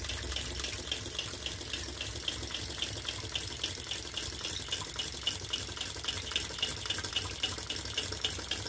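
A vintage Empire toy water pump, belt-driven by a Tarot Stirling engine, pumping water that splashes from its spout into the tray in a steady rhythm of about four pulses a second, with a low hum underneath.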